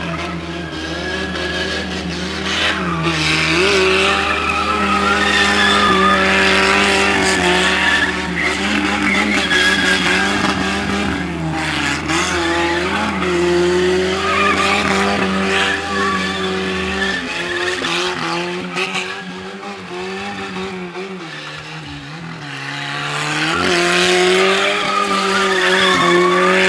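Chevrolet Chevette's four-cylinder engine held at high revs in burnouts and drifts, the revs rising and dipping again and again, over the squeal of its spinning rear tyres. The sound eases off a little about twenty seconds in, then builds again.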